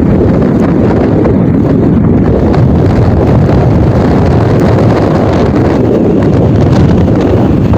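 Gale-force wind buffeting the microphone: a loud, steady low rumble.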